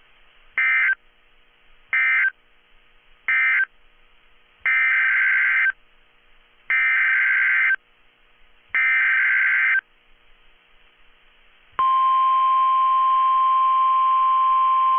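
Emergency Alert System signalling from NOAA Weather Radio. First come three short buzzy SAME end-of-message data bursts, then three SAME header data bursts of about a second each, evenly spaced. About twelve seconds in, the steady 1050 Hz weather-radio warning alarm tone starts and holds.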